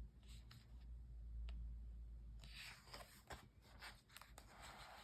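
Pages of a picture book being turned: faint paper rustling, a few light clicks, and a soft low rumble of handling.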